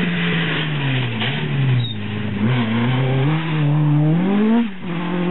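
Rally car engine on a special stage: the revs fall over the first couple of seconds as the car slows, then climb again in steps through upshifts as it accelerates away, with a brief dip at a gear change near the end.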